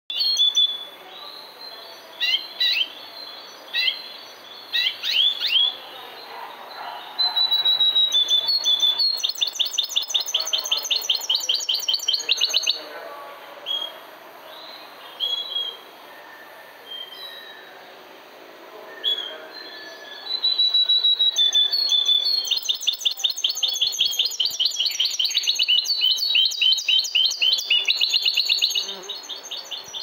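Goldfinch × canary hybrid (mule) singing: scattered short chirps at first, then long runs of fast trills from about seven seconds in, a stretch of sparse notes, and continuous rapid trilling again from about twenty seconds on.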